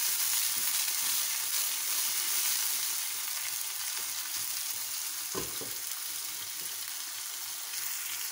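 Sliced onions with cumin seeds and a curry leaf sizzling steadily in hot oil in a small saucepan, frying toward light golden. A single brief low knock about five seconds in.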